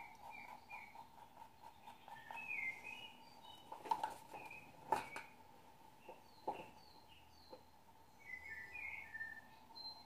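Small birds chirping in short calls over a faint steady hum, with three sharp clicks near the middle.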